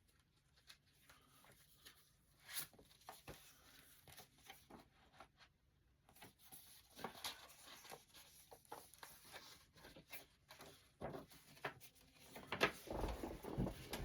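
Faint handling noises of CD cases and packaging: scattered light clicks and rustles, growing busier near the end with a few soft knocks.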